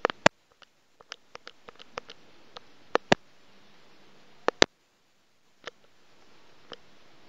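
Handling noise from a cardboard gift box being handled and opened: a string of irregular sharp clicks and taps, the loudest in close pairs just after the start, about 3 seconds in and about 4.5 seconds in.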